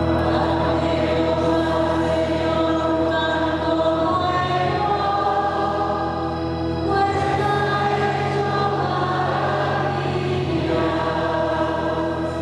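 Church choir singing a sung psalm response at Mass, with instrumental accompaniment. Held bass chords change every few seconds.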